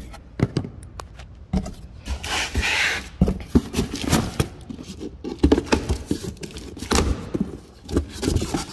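Cardboard shipping box being opened by hand: packing tape slit with a utility knife and cardboard flaps scraping and knocking as they are pulled open. A longer rasping stretch about two to three seconds in, among irregular knocks.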